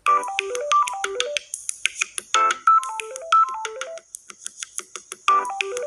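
Samsung Galaxy A01 Core ringtone playing: a short electronic melody of quick stepping notes over a clicking beat. The loop starts over about five seconds in.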